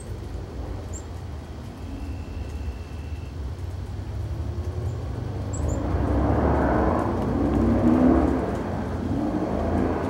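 A passing vehicle's rumble, building from the middle and peaking near the end before easing off. A few faint, short high bird chips.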